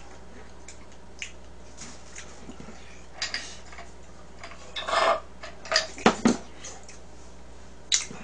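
Cutlery clinking and scraping against a bowl while eating. The knocks are short and scattered, busiest between about three and six seconds in, with one longer scrape near the middle.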